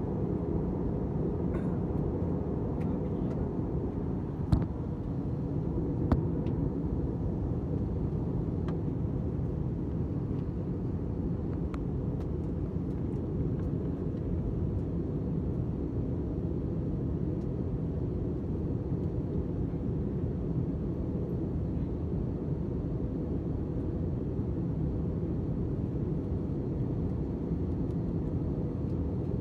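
Steady low rumble of an airliner, with two sharp clicks about four and a half and six seconds in.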